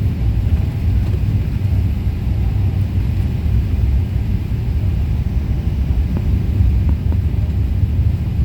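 Steady, loud low rumble of a jet airliner's engines and airflow heard inside the passenger cabin during the approach to landing.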